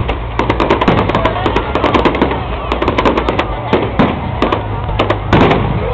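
Fireworks display: dense, rapid crackling and popping of bursting shells and stars, with a heavier cluster of bangs near the end.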